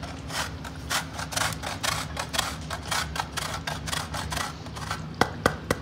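Cheese being grated on a metal box grater: a run of quick, evenly spaced rasping strokes, several a second, ending near the close in a few sharper clicks.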